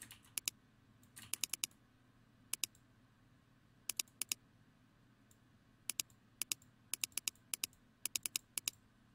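Computer mouse and keyboard clicks from someone working in 3D modelling software. The sharp clicks come in quick clusters of two to four and grow more frequent in the second half, over a faint low hum.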